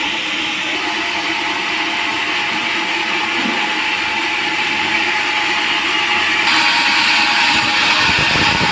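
Sawmill machinery running steadily during log sawing, a continuous mechanical noise with a faint steady tone, growing a little louder near the end.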